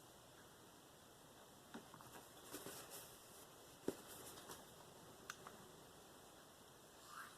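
Faint scraping strokes of a K390 steel knife blade on a Venev diamond sharpening stone, mostly near silence, with a sharp click about four seconds in and another fainter one a little later.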